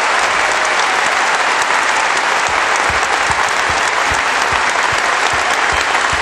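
A large audience applauding steadily in a standing ovation, with a few low thuds from about halfway through.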